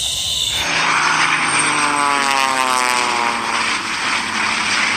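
Propeller biplanes flying low past, their piston engines droning with a pitch that falls steadily as they go by.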